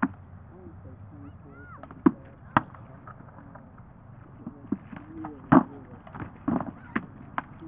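Swords striking shields and armor in armored sparring: about eight sharp knocks at uneven intervals, the loudest about two seconds in and again just past the middle, with faint voices between them.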